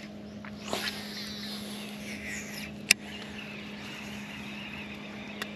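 A baitcasting reel in use during a cast and retrieve: a whirring rush as line runs off the spool, a sharp click about three seconds in, then the reel being cranked. A steady low hum runs underneath.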